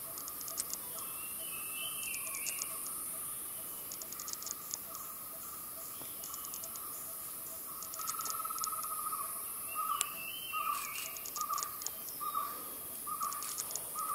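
Tropical forest ambience: steady high insect hiss and drone, with bursts of rapid clicking chirps every second or two. From about two-thirds of the way in, a bird repeats one short note roughly every three-quarters of a second, with a few brief chirps.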